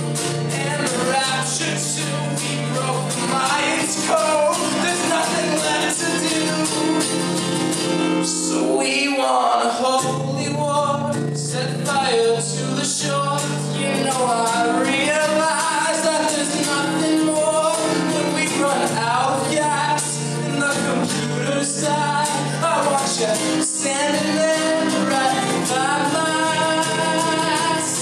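A man singing a folk song live, accompanying himself on a strummed acoustic guitar.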